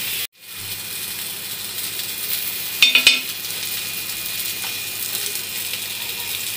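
Galawati kababs shallow-frying in a little oil on a griddle over low heat: a steady sizzle, with one short, sharper sound about three seconds in.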